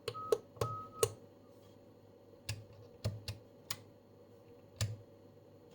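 Switches clicking on a vintage Storno TS-G13 audio tone test set, with two short steady beeps from the unit near the start, then more scattered clicks.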